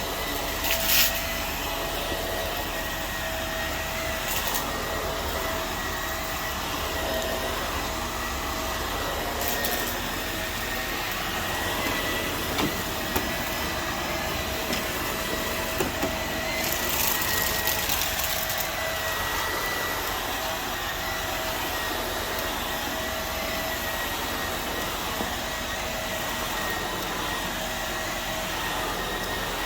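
Vacuum cleaner running steadily, its motor holding a constant whine, with a few short high hissing bursts now and then, the longest just past halfway, and a few small clicks.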